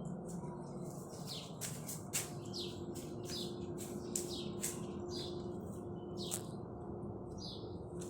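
Small birds chirping: a string of short, sharp high chirps, one or two a second, over a steady low hum.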